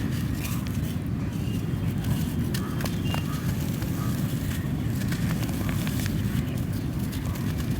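Lumps of red dirt being crumbled by hand: a steady dense low crunching with scattered sharp crackles. The dirt is dry on the outside but still damp inside.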